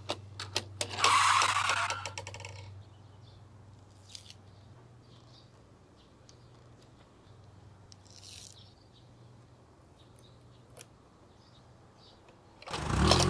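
Plastic toy gas station and toy bus being handled: a few sharp clicks as a button is pressed, then a brief scraping rustle of plastic. After that it is quiet apart from a faint steady hum and a few small taps, with a loud burst of noise near the end.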